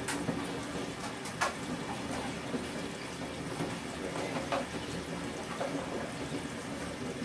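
Steady hiss with a few light clicks and knocks as a small TV and its cables are handled.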